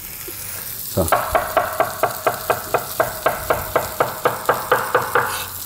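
Large kitchen knife chopping soft, ripe papaya on a wooden cutting board: a quick, even run of about five cuts a second that starts about a second in and stops shortly before the end. Under it runs the sizzle of onions frying in butter in a pan.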